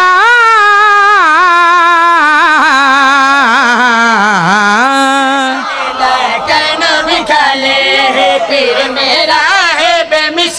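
A man's solo voice sings a qasida into a microphone, holding one long, wavering note for about five seconds, then breaking into shorter sung phrases.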